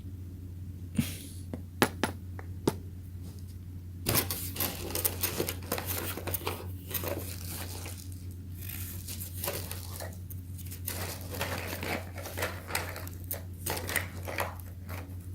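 A few sharp clicks, then about four seconds in a long run of irregular scraping, crinkling and small clatter as tools and small phone parts are handled during the repair, over a steady low electrical hum.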